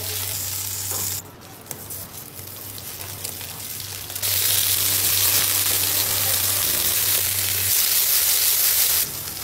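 Beef cubes searing in hot oil in a cast iron Dutch oven: a steady sizzle that falls away about a second in and comes back loud about four seconds in.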